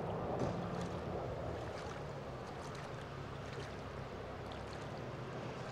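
Steady outdoor background noise: an even hush with a low hum underneath and a few faint light ticks.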